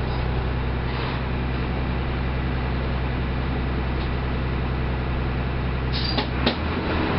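Mercedes-Benz OF 1318 bus's diesel engine running with a steady low drone. About six seconds in there are a short hiss and a couple of sharp clicks, and the engine note drops.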